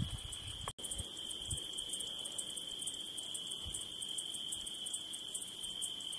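Crickets chirping: a steady high trill with rapid, regular pulsing chirps above it. The sound drops out for an instant just under a second in.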